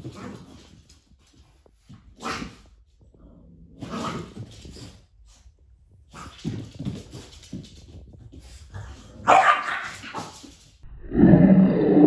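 A French bulldog and a Yorkshire terrier barking at each other while they play-fight, in short bursts a couple of seconds apart, the loudest a little after nine seconds. A longer, loud stretch starts near the end.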